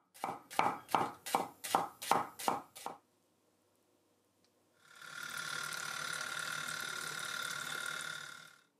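A kitchen knife chopping onion on a wooden cutting board, about eight even cuts in three seconds. After a short pause, a steady hiss with a faint high tone runs for nearly four seconds.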